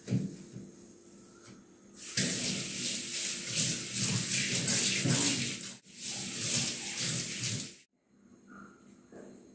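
Kitchen tap running into a stainless steel sink as it is rinsed after scrubbing, water splashing on the metal and on her hands. The rush starts about two seconds in, dips briefly, and cuts off abruptly near the end.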